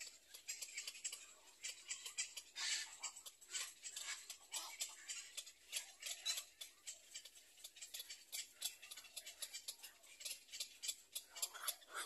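Black-crowned night heron chicks in the nest giving fast, irregular clicking calls, with a few slightly longer, fuller notes among them.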